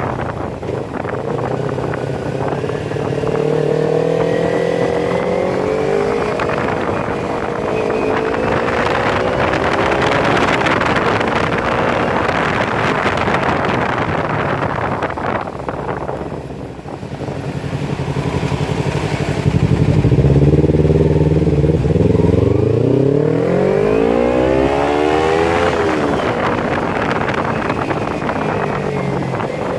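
Kawasaki Ninja 250 FI parallel-twin engine through an open Scorpion full-system exhaust with no dB killer, revving up and down repeatedly. About three quarters of the way through the revs climb steeply for several seconds and then drop suddenly.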